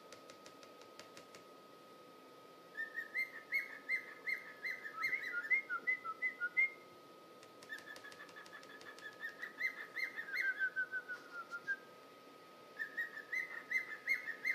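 Cockatiel whistling and chirping in three bouts of quick repeated notes, each bout lasting a few seconds.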